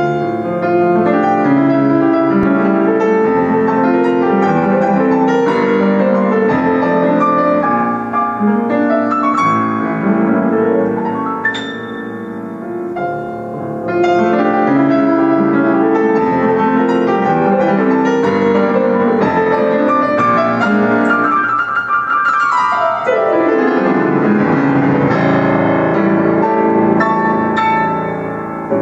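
Solo piano played on a Steinway & Sons Model D concert grand: a busy passage of chords and running notes, easing off for a couple of seconds near the middle, then a fast sweeping run about three-quarters of the way through.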